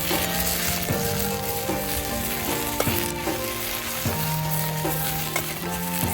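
Food sizzling as it fries in a pan while being stirred, with a few sharp clicks of a utensil against the pan.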